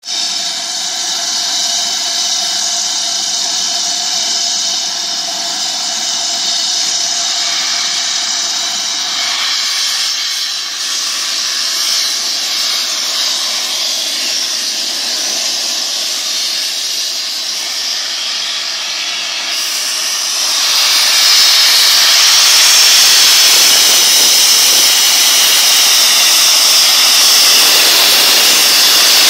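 Steam locomotive 70000 Britannia, a BR Standard Class 7 Pacific, standing and venting steam with a loud continuous hiss. Several steady whistling tones sit over the hiss in the first third, and the hiss grows louder about two-thirds of the way through, with no exhaust beat.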